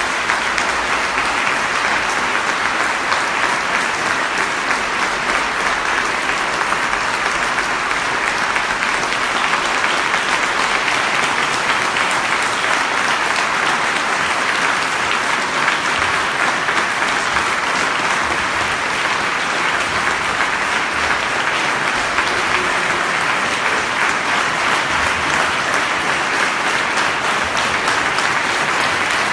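Audience applauding, a long, steady, unbroken round of clapping.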